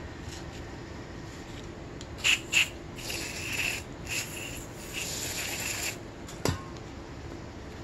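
A rag rubbing and wiping a metal dirt-bike kick-start lever to clean it: two short strokes, then longer rubs, with a sharp click near the end.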